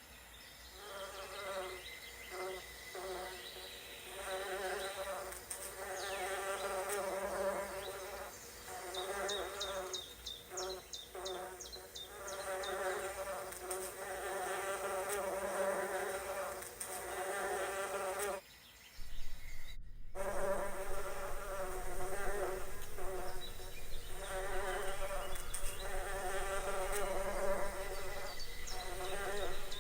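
Buzzing of a flying insect, with its hum coming and going in bursts of one to two seconds and short breaks. Faint rapid high ticking calls come in about six to eleven seconds in, and the sound drops out briefly just before the twentieth second.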